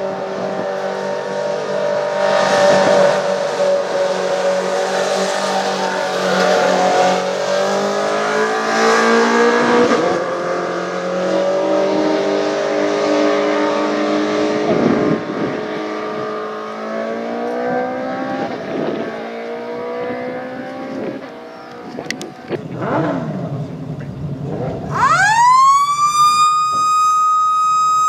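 Several motorcycle-engined Formula 600 race cars running together, their engine notes rising and falling as the throttles are blipped. Near the end a siren starts, sweeping up quickly and then holding one steady high tone.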